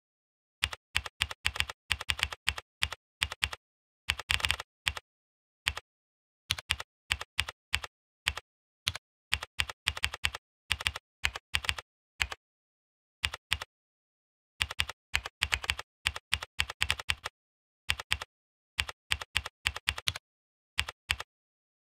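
Typing on a computer keyboard: rapid key clicks in irregular bursts with short pauses between.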